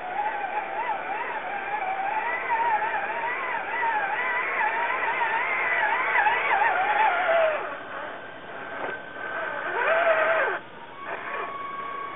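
RC4WD Trail Finder 2 scale crawler's electric motor and geartrain whining as it crawls over rocks, the pitch wavering up and down with the throttle. It eases off about seven and a half seconds in, with a short rev about ten seconds in.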